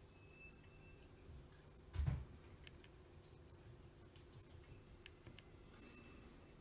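Conway Stewart 36 fountain pen nib writing faintly on paper, with a few small ticks. There is a soft low thump about two seconds in.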